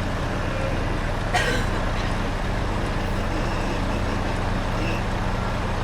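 Heavy truck's diesel engine running steadily, a constant low drone, with one brief noise about a second and a half in.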